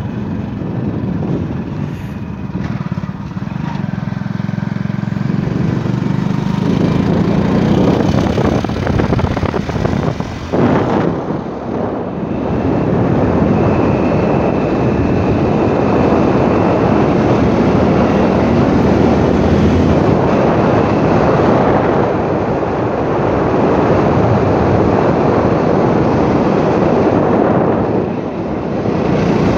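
Engine of a motorised two-wheeler running as it is ridden along the road. From several seconds in, heavy wind rushing over the microphone all but covers the engine.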